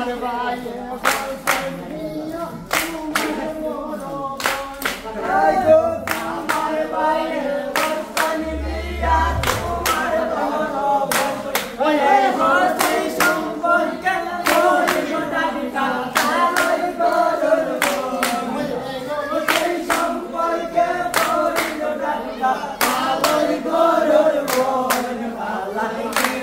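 A group of men singing a Sylheti dhamail folk song together, unaccompanied, while clapping their hands in a steady rhythm.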